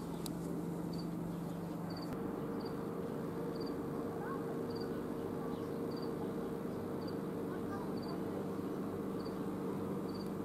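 A cricket chirping steadily, short high chirps about once a second, over a steady low hum.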